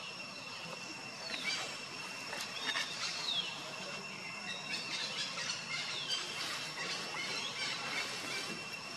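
Forest ambience: a steady high-pitched insect drone with scattered short, falling bird chirps.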